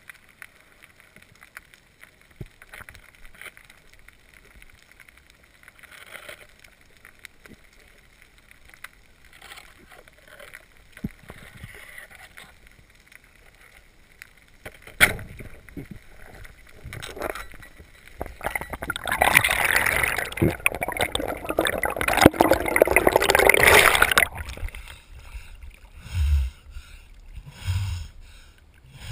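Underwater ambience on a reef dive: faint crackle at first, a sharp click about halfway, then a loud rush of water and bubbles lasting about six seconds as the diver rises. At the surface near the end come low splashes of waves against the camera housing.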